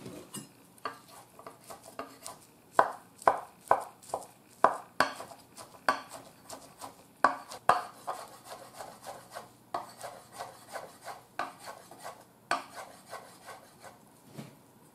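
Chef's knife chopping thin egg crepe into fine strips on a wooden cutting board: a steady run of knife strikes on the board, about two a second and loudest in the first half, then lighter, quicker taps.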